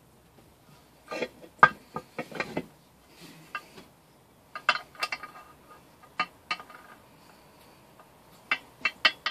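Metal parts and tools of a 3 hp small engine clinking and knocking against each other as it is put back together by hand: scattered sharp clicks in short clusters, about a second in, around five seconds, and a quick run near the end.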